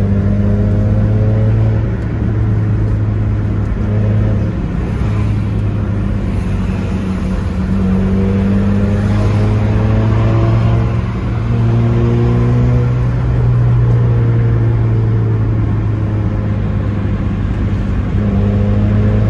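Car engine running while driving, a steady drone with gentle rises and falls in pitch as it gathers speed and eases off.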